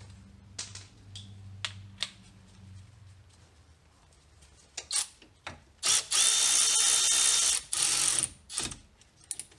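Milwaukee Fuel cordless ratchet running in short bursts, the longest about a second and a half, with a steady motor whine, driving the brake hose bracket's retainer bolt into sheet metal. Light clicks and knocks of the bolt and tool being handled come before it.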